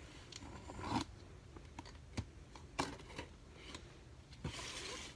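Cardboard box being handled and opened: scattered knocks and clicks, and a short scraping rasp near the end.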